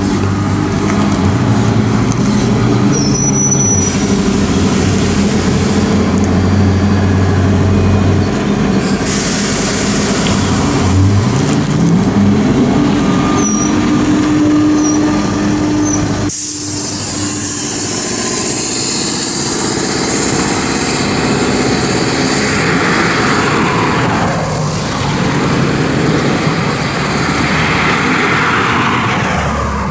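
Skoda 14Tr trolleybus running close by: a steady electric hum and short hisses of compressed air. Then the whine of its electric traction motor rises in pitch as it pulls away and passes. After a sudden change about halfway, traffic noise and another rising whine follow as it drives off.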